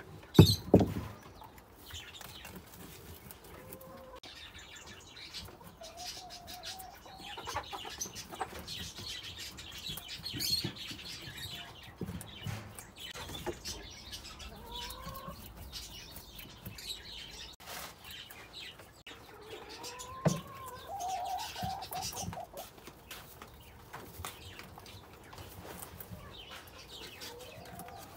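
Birds calling on and off: short gliding calls, a run of higher chirps around eight to eleven seconds in, and a rapid string of calls about twenty seconds in. A loud thump comes just after the start.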